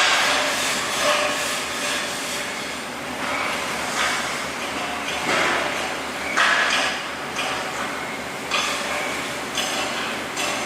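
Steady industrial workshop noise with short knocks every second or two.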